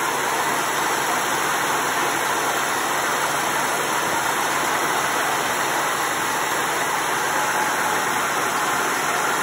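1996 Ford F-150 engine running at a steady high idle, heard at the open engine bay as an even, unchanging drone with a hiss to it. The idle has not yet come down.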